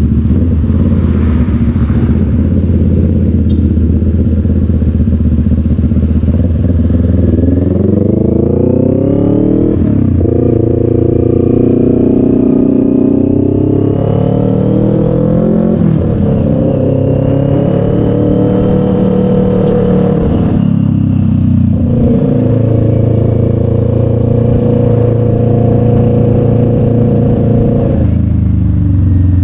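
Motorcycle engine heard from the rider's position while riding. It rises in pitch as it accelerates, drops back sharply several times, and runs steadily in between.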